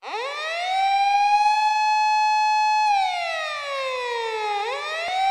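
Siren wailing as the opening of a punk rock track: it rises quickly at the start, holds one steady tone, sinks slowly from about three seconds in, then climbs back up near the end.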